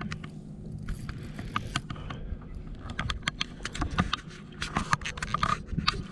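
Fishing reel ticking and clicking in irregular bursts as a hooked catfish is played and pulls drag, over a steady low hum.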